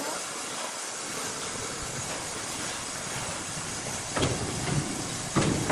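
Sawmill noise as a large log is moved on an overhead crane: a steady mechanical hiss, with two heavy knocks, about four seconds and five and a half seconds in.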